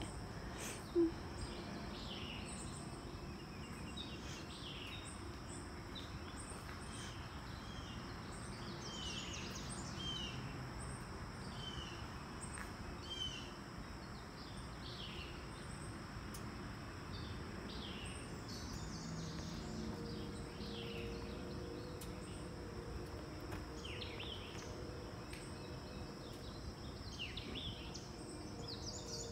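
Outdoor ambience: birds chirping on and off, short falling chirps, over a steady background hiss. A single short knock about a second in.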